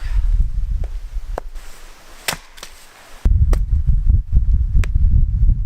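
Swedish axe chopping into a log to split it: one sharp strike about two seconds in, with a few lighter knocks around it. Wind buffets the microphone, suddenly much louder from about halfway through.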